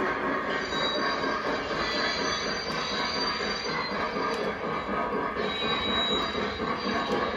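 Lionel O-gauge Union Pacific passenger cars rolling along the track in a steady rumble of wheels on rail, with a faint high wheel squeal in two stretches.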